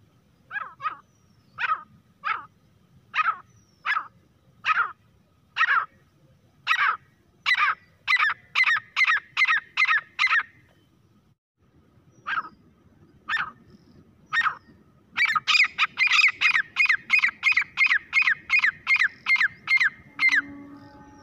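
Grey francolin calling: a series of sharp, loud notes that starts slowly and speeds up into a fast rattle, breaks off about eleven seconds in, then resumes with a few spaced notes and a second fast run of about five seconds.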